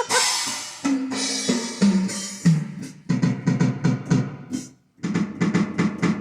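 Drum-kit sounds played on a keyboard synthesizer. A fill of toms steps down in pitch, then come quick runs of drum hits with cymbal, stopping briefly about five seconds in before starting again.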